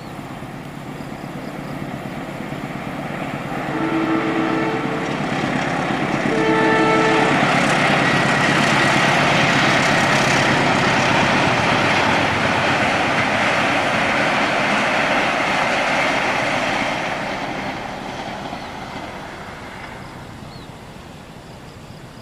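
A train sounding its multi-note horn twice, a longer blast then a shorter one, and then passing close by with a loud rush of wheels on rail that fades as it moves away.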